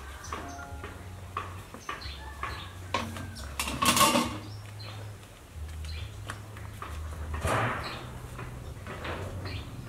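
Plastic and metal bowls and basins being handled and knocked together, with a loud clatter about four seconds in and a smaller one near the end. Birds chirp in the background.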